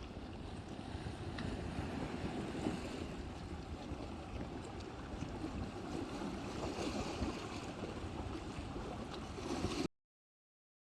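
Water splashing and lapping with wind rumbling on the microphone while paddling an inflatable paddleboard on the sea, cutting off suddenly to silence near the end.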